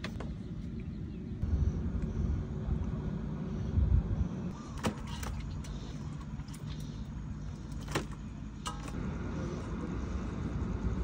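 A low, uneven rumble, with a few sharp knocks as eels are cut on a wooden chopping block and washed in a metal basin.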